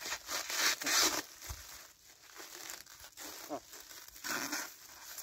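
Clear plastic stretch film crinkling and rustling as it is pulled and stretched over a frame of branches, in bursts: two close together near the start and another about four seconds in.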